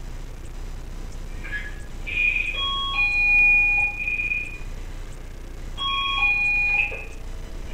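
Video door phone indoor monitor (VTB 05) ringing with its electronic chime: a short melody of clear tones, played once about two seconds in and again about six seconds in.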